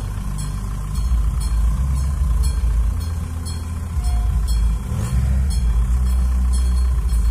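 Level crossing's classic electric bell striking about twice a second, over the low steady running of a car engine idling close by and cars driving across the crossing.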